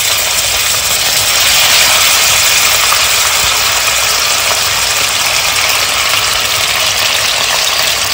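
Raw chicken strips sizzling in hot oil in a steel kadhai just after going into the pan: a steady, loud frying hiss.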